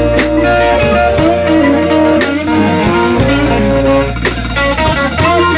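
Live blues band playing an instrumental passage between sung lines, with guitar and drum kit.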